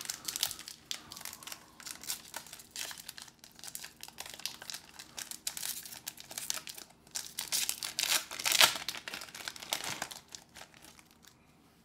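Pokémon booster pack's foil wrapper being crinkled and torn open, an irregular crackling that runs on for several seconds and is loudest about three-quarters of the way through.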